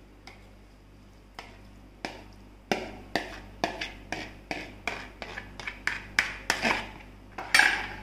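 Steel spoon knocking and scraping against a plastic bowl while crumbly chhena curds are scraped out, in quick knocks about two a second, with a louder knock near the end.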